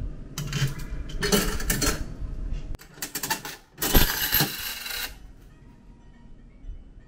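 A Daito coin-change machine being worked by hand: its side handle is turned with clicks and rattles, then about four seconds in ten-yen coins clatter down into the metal tray, the loudest part.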